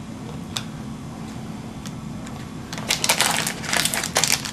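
A few faint clicks, then about three seconds in the crinkling and rustling of a foil trading-card pack wrapper being handled and torn open.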